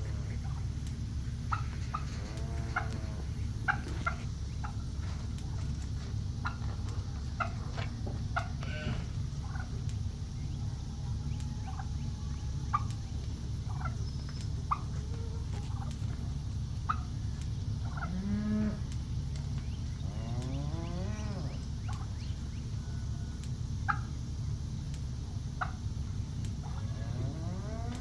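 Farm animals calling over a steady low rumble: many short calls scattered throughout, and a few longer calls rising in pitch near the middle and at the end.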